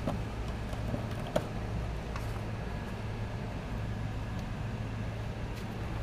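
Steady low background hum, with a few light clicks from the rope and kayak fittings being handled and one sharper tap about a second and a half in.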